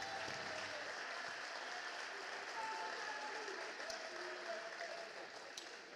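Crowd applauding in a sports hall, with a few voices calling out over it; the clapping dies down slightly near the end.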